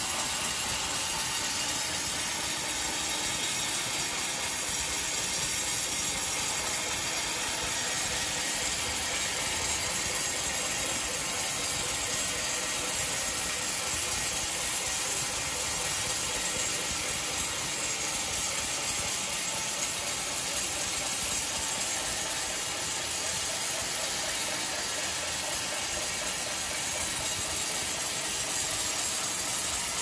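Sawmill band saw running, a steady hissing mechanical noise that does not change.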